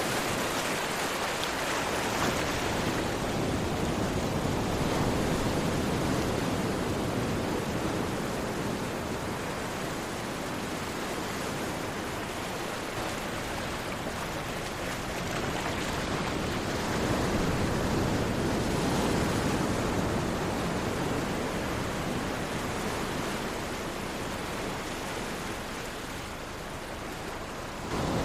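Ocean waves washing onto a shore in a steady rush, swelling and easing slowly over several seconds.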